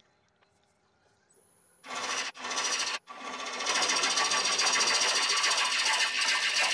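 A lathe tool cutting into a spinning yew bowl blank, hollowing out the inside. The loud cut starts about two seconds in, stops twice briefly, then runs on steadily as a dense, fast rattle.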